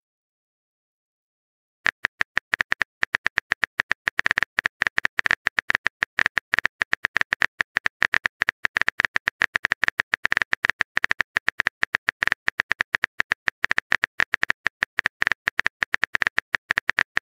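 Keyboard typing sound effect of a chat-story app: a fast, uneven run of sharp clicks, several a second, starting about two seconds in.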